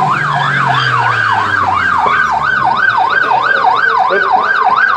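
Police car siren sounding in a fast yelp: a steady warble rising and falling about two and a half times a second.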